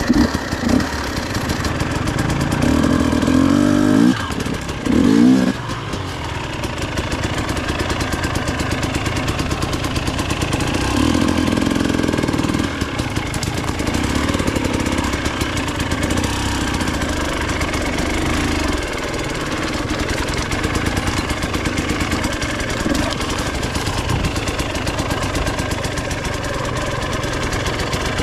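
Dirt bike engine running, revved in a few quick blips about three to five seconds in, then pulling steadily at low speed.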